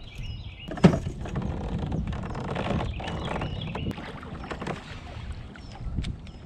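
Water lapping and sloshing around a plastic pedal kayak, with a sharp knock about a second in and a few softer knocks of gear against the hull, and a few short bird chirps.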